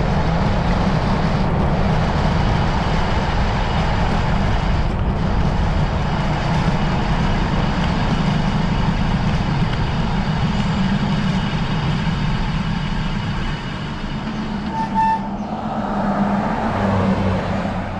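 Wind rushing over the camera microphone and bicycle tyre rumble as the bike coasts fast down a steep hill. About fifteen seconds in the rush eases and there is a short high brake squeal.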